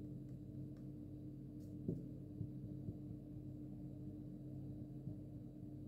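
A quiet, steady low hum, with one faint tap about two seconds in.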